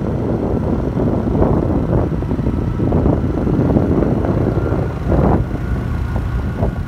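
Wind buffeting the microphone of a moving scooter, a loud, uneven rumble, with the scooter running underneath.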